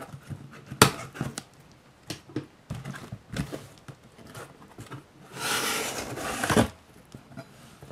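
Cardboard shipping box being handled and opened: a sharp knock about a second in, scattered taps and scrapes, then a loud rasping rip of about a second and a half as the taped top flaps are pulled open.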